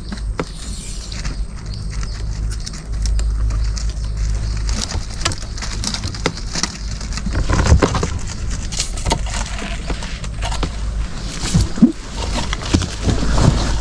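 Irregular knocks, taps and splashing as a bamboo fish trap is handled and emptied in a small boat, over a steady low rumble.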